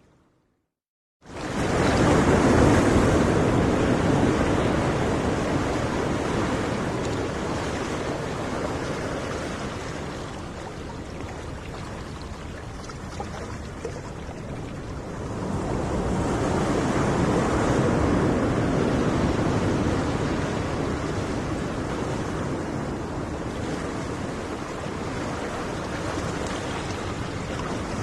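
Ocean surf: waves breaking and washing, cutting in abruptly after about a second of silence and swelling and easing slowly, with two big surges.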